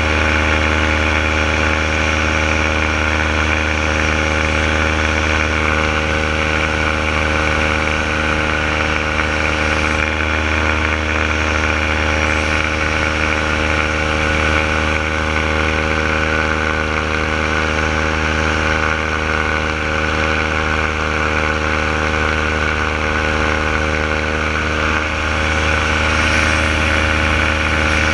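Renegade paramotor engine and propeller running at a steady cruise throttle in flight: a constant, unchanging drone.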